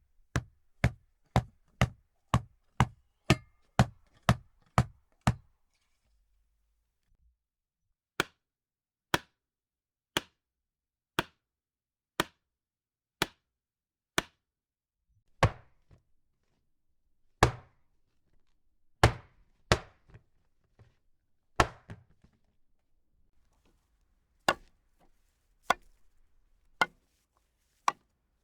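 Axe blade striking wood, one sharp chopping blow after another. The blows come quickly at first, about two a second, then after a pause about one a second, and then slower and uneven, with some heavier blows.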